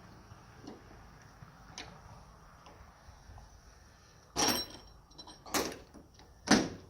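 Rugged Ridge hood latch on a Jeep Wrangler TJ being worked by hand: a few faint clicks, then three loud clacks about a second apart. This is a firm, positive latch.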